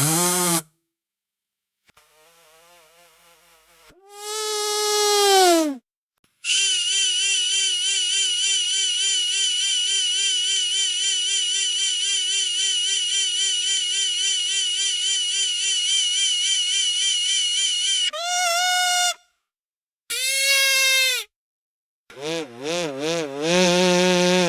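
Bee buzzing sound effect: one buzzing tone with a wavering pitch, cut into separate bursts with silence between them. The buzz dips in pitch about five seconds in, holds steady for about eleven seconds, then breaks into shorter bursts near the end.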